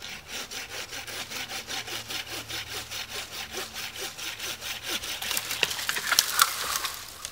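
A hand saw, likely a bucksaw, cutting through a piece of wood with quick, even strokes, about six a second. From about five seconds in it gives way to several loud, sharp cracks and snaps of breaking wood.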